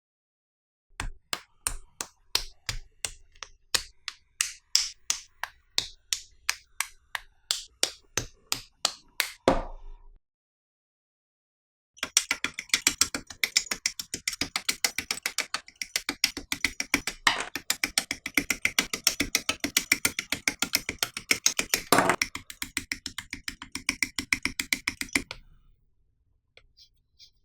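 Hand-sanding or scraping strokes on plastic model kit parts: a rhythmic run of about three short strokes a second, then a pause of about two seconds, then a faster and denser run that stops near the end.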